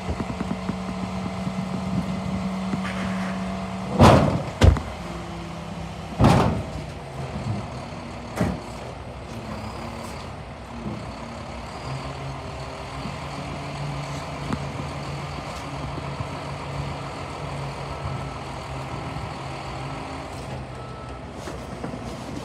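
Roll-off garbage truck's engine running under load as its hydraulic hoist lowers the emptied dumpster back onto the truck. Several loud metal bangs come between about four and eight seconds in.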